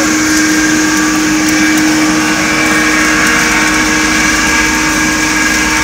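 Commercial hot-air popcorn machine running: a loud, steady motor and blower hum with a constant low tone.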